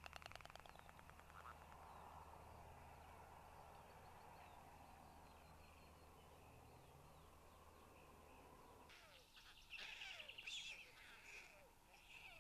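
Faint outdoor bird sounds. A fast rattling sound fades out at the start, and from about nine seconds in, small songbirds sing and chirp in short, quick phrases.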